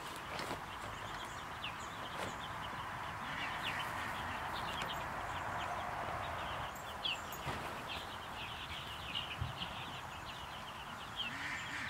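A flock of baby chicks and ducklings peeping continuously in many short high chirps. Under them runs a soft rustling of greenhouse plastic sheeting as it is rolled up the side of the chicken tractor.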